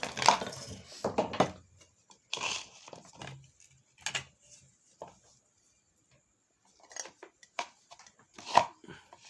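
Irregular light clicks and clattering knocks of hands handling the rewound ceiling fan's wiring and tools, the loudest just after the start and about eight and a half seconds in.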